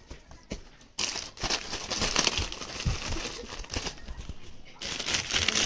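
Parcel packaging crinkling and rustling as it is handled and opened, starting about a second in with dense crackles.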